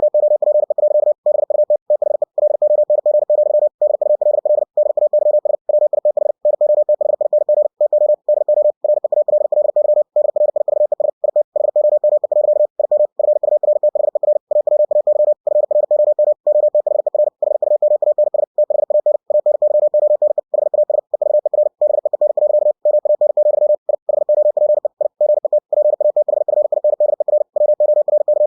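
Computer-generated Morse code (CW) from ebook2cw: a single pitched tone keyed on and off very fast at 60 words per minute, spelling out continuous text. Short pauses for the spaces between words come about once a second.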